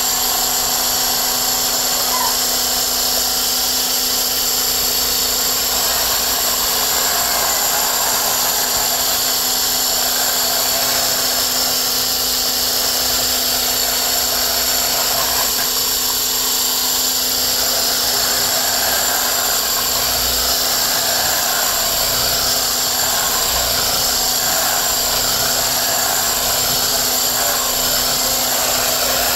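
Electric stick blender with a whisk attachment running at a steady speed, whisking pancake batter in a plastic bowl. It makes a constant motor whine.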